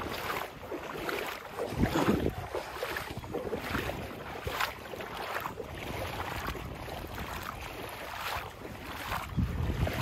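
Footsteps at a steady walking pace, a little under two steps a second, with wind buffeting the microphone, the gusts growing stronger near the end.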